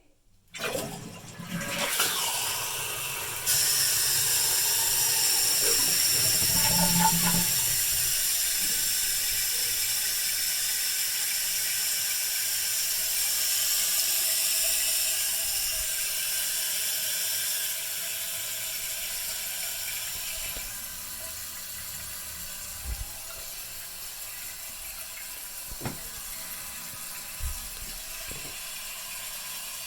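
1992 Eljer Emblem toilet flushing with its tank lid off: a rush of water starts about half a second in and gets louder a few seconds later. It eases around 18 and 21 seconds in, then settles into a steady, quieter hiss of the tank refilling, with a few small knocks near the end.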